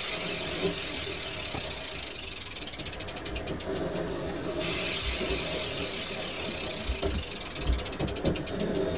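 Rapid ratchet-like clicking over a steady rushing noise, with two runs of fast clicks, one about two seconds in and one near the end.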